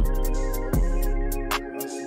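Hip hop beat cutting in abruptly as playback resumes: deep bass, sustained chords and sharp drum hits, with the bass dropping out briefly near the end.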